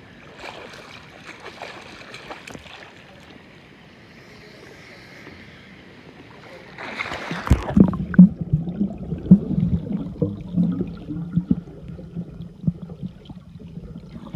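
Swimming-pool water lapping softly around a camera held at the surface. About seven seconds in there is a splash as the camera goes under. From then on the sound is muffled underwater noise with many short knocks and gurgles as a swimmer moves below the surface.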